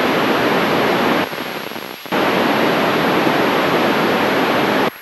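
Amateur FM radio receiver hissing with loud static while listening to the ISS repeater downlink for a reply: the signal is noisy and unreadable. The hiss dips for about a second, returns, then cuts off abruptly near the end.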